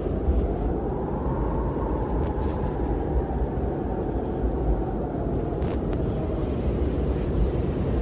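Strong wind blowing with a heavy low rumble and a faint higher whoosh that swells in the middle and fades away.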